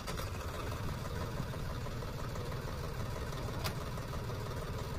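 Deutz-Fahr tractor's diesel engine idling steadily, with a single sharp click about three and a half seconds in.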